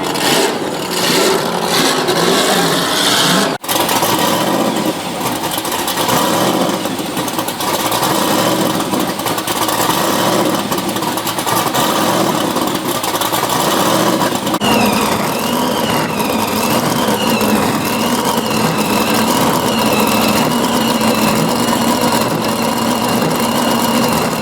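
A burnout car's engine revving hard, then held at high revs in a steady note. There is a sudden break about four seconds in, and a wavering high squeal joins about fifteen seconds in.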